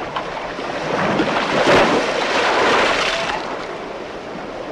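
Sea waves washing in, swelling to their loudest about two seconds in and then easing off.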